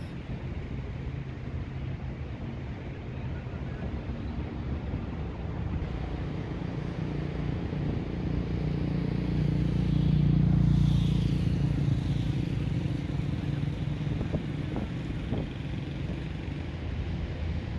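Motor vehicle engine hum, swelling to its loudest about ten seconds in as it passes close by, then fading.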